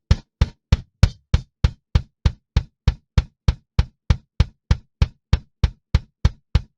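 Soloed live-recorded kick drum track playing back through a noise gate: steady kick hits about three a second, each hit with a deep thud and a sharp click, cut off short so there is silence between them. It sounds much cleaner.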